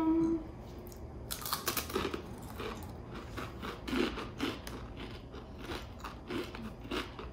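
Two people crunching and chewing Takis, rolled corn tortilla chips: a run of sharp, irregular crunches starting about a second in.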